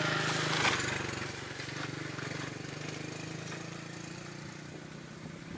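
A motor engine hums steadily in the background and slowly fades. A short rustling noise comes at the start.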